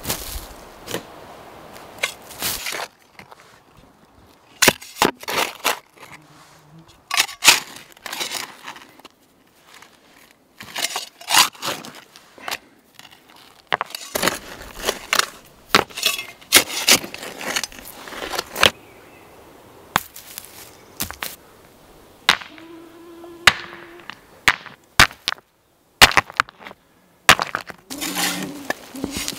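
Short-handled shovel digging into sandy, stony soil: repeated sharp chops and scrapes of the metal blade in irregular clusters with short pauses, and shovelfuls of sand thrown onto a heap.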